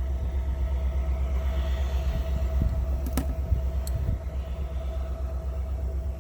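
Steady low mechanical rumble with a thin steady hum over it, and a couple of small clicks about three and four seconds in from wire strippers working on a wire.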